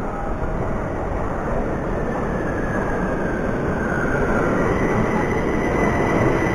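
Metro train pulling into the station, a steady rumble of wheels on rail that grows louder as it approaches, with a faint high whine building in the second half.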